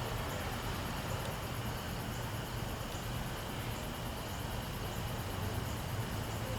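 Norfolk Southern train running by as a steady rumble with a low hum underneath.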